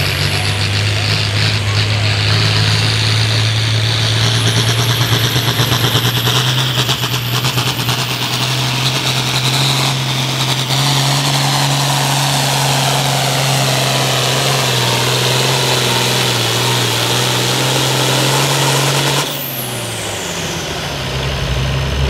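International farm tractor's turbocharged diesel engine at full throttle, pulling a weight-transfer sled, with a high turbo whine over the steady engine note. About nineteen seconds in the throttle comes off: the engine note drops and the whine slides down in pitch.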